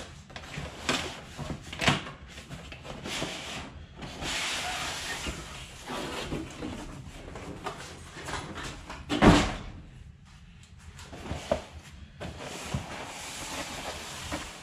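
Large cardboard boxes scraping and rustling against each other as a printed outer sleeve is slid off a plain inner box and the box is handled, with scattered knocks and one loud thump about nine seconds in.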